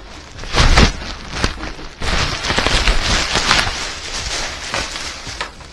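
Packaging wrap rustling and crinkling as a carbon fibre rear wing is unwrapped by hand, with a louder handling knock near the start.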